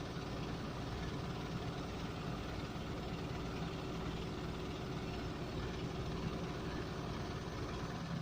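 Engine of a vehicle or heavy machine running steadily at a constant speed, a low even hum that does not change.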